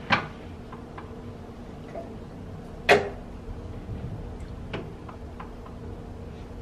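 Small objects being picked up and set down on a bathroom vanity countertop: a few sharp clacks, the loudest about three seconds in with a short ring, and lighter ticks between.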